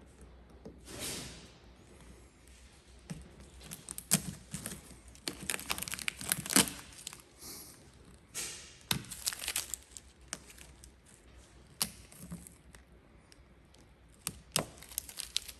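Gloss black vinyl wrap film being handled and worked by hand: irregular sharp crackles and short crinkly swishes, scattered unevenly throughout.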